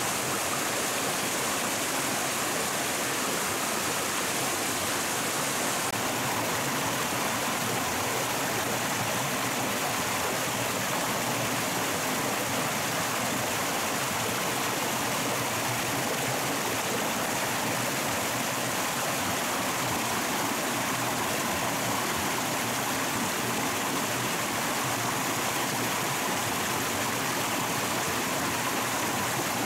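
Running stream water rushing in an even, unbroken flow.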